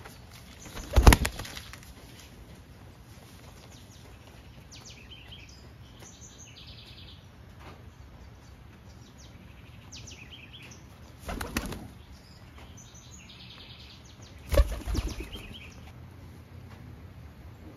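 Domestic pigeons flapping their wings in three short bursts, the first the loudest. Faint small-bird chirps sound in between.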